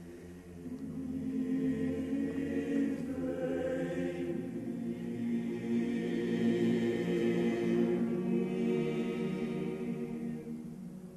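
Male a cappella choir singing long held chords, swelling about a second in and dying away near the end.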